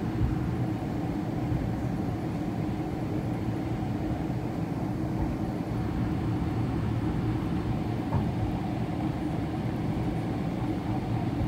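Cabin noise inside a Boeing 777-300ER with its GE90 engines running at ground idle: a steady low rumble with a constant hum.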